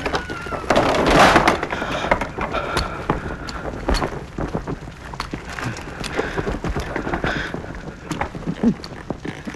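Fire crackling and popping through burning rubble, with a louder rushing burst about a second in.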